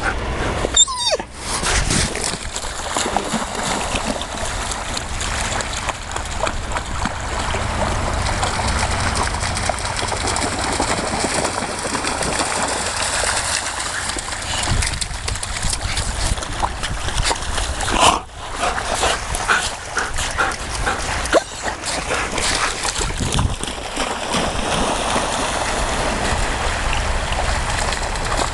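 Dogs running and splashing through shallow water at the shoreline, with a few brief dog noises, over a steady rushing background.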